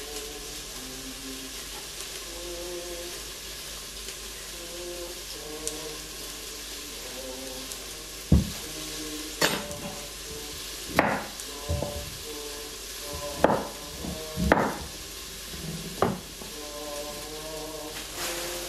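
Knife chopping vegetables on a wooden chopping board: about seven sharp knocks in the second half. Under it a steady sizzle of food frying in a pan, and held notes of a musical instrument being practised in the background.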